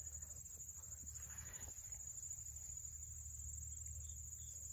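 Insects trilling: a steady, high-pitched, even buzz, with a low rumble underneath and a faint rustle about a second and a half in.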